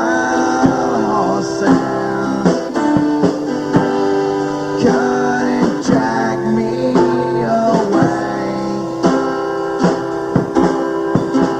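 Acoustic guitar played with a rhythmic strum, notes ringing with some bends.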